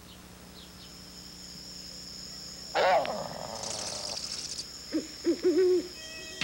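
Night-forest sound effects: a steady high cricket chirring, a loud wavering call about three seconds in, and an owl hooting three times near the end.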